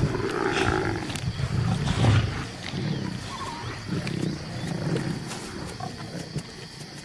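Lions growling in repeated low bursts while squabbling over a small kill, with too little food for the whole pride; the growls fade toward the end.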